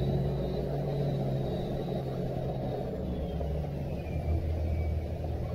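Toyota LandCruiser Troop Carrier driving along a wet dirt track: a steady low engine and road rumble.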